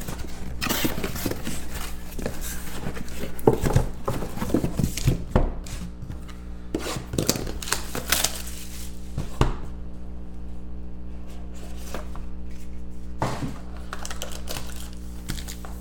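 Cardboard and paperboard trading-card boxes handled and opened by hand: rubbing, scraping and sharp knocks, busiest in the first ten seconds and sparser after that. A steady low hum runs underneath.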